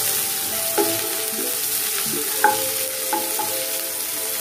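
Sliced onions sizzling gently in oil and ghee on low heat in a non-stick pan, stirred with a wooden spatula that knocks against the pan a few times, loudest about two and a half seconds in.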